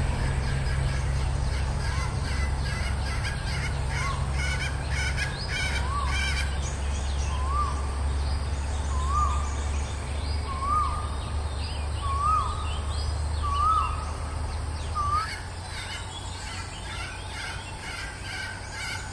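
Red junglefowl hen giving a run of about nine short calls, one every second and a half or so, creeping slightly higher and louder toward the end. Small birds chirp faintly in the background, and a low rumble stops about fifteen seconds in.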